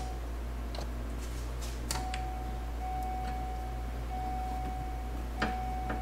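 The car's electric warning chime sounding a steady single tone, starting about two seconds in. A few sharp clicks come before and around it, and a constant low hum runs underneath.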